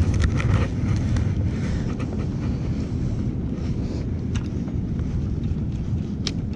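Wind rumbling on the microphone, with a few sharp short clicks, the clearest about four and a half and six seconds in.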